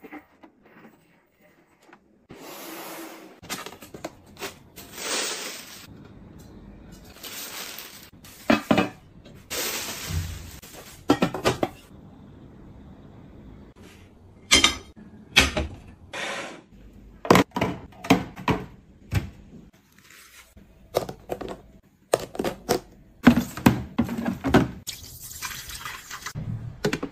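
Household objects being handled and set down: a run of short knocks, clatters and rustles of plastic and boxes, including a metal heat-diffuser plate laid on a gas hob's grate. Near the end, water is poured from a jug into a water dispenser's tank.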